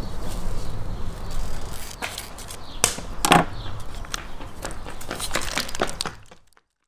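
Plastic sauce sachet being handled, torn open and squeezed: irregular crinkles and sharp clicks over a low steady rumble, cutting off suddenly near the end.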